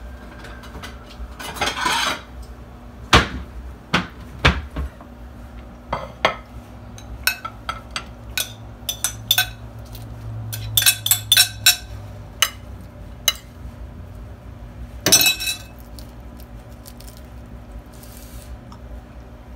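A metal spoon and ceramic dishes clinking and scraping as salad is spooned from a bowl onto a plate: scattered sharp clinks, a quick run of ringing clinks around the middle, and a longer scrape about two seconds in and again near fifteen seconds.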